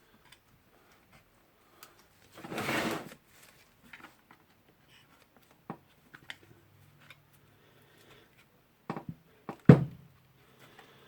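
Rotary hammer housing parts being handled and worked on a bench: scattered light clicks and knocks, a short scraping rustle about two and a half seconds in, and a sharp knock near the end.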